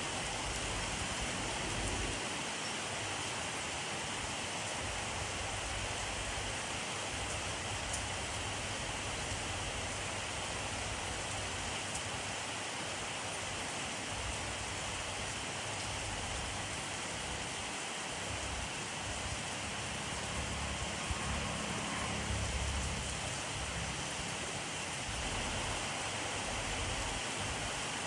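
Steady rainfall, an even hiss of rain with no break. A low rumble swells briefly about two-thirds of the way through.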